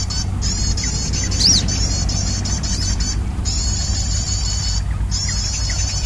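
Bird-trapping lure call played on a loop from an MP3 player: a rapid, high, evenly repeated chirping that breaks off briefly three times. A few short chirps from wild birds and a low rumble sound underneath.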